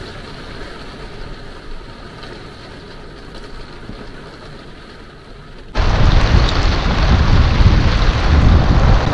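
Heavy rain falling steadily. About halfway through it cuts abruptly to a much louder, deeper rush of wind and rain buffeting the microphone.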